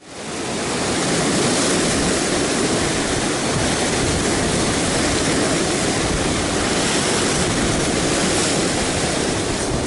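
Rough sea breaking and churning against shore rocks: a steady, loud rush of surf and foam that fades in over the first second.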